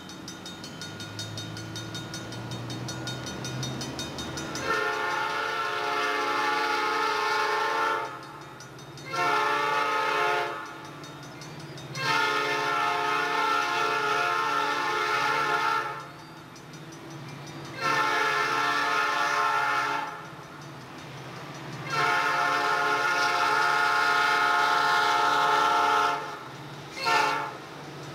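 Diesel freight locomotive's multi-note air horn sounding a series of long blasts, with a brief one near the end, over the low rumble of the engine as the train approaches a grade crossing.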